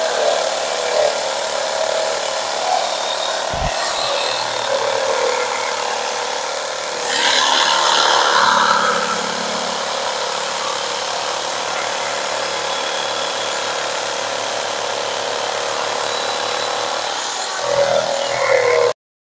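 Modern M-2200L electric jigsaw running, its blade sawing through a wooden plank with a steady buzzing rattle, louder for a few seconds about seven seconds in. A single low knock a few seconds in; the sound cuts off abruptly just before the end.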